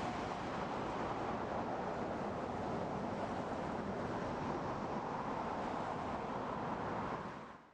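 Steady rushing noise with no clear tone or rhythm, fading out near the end.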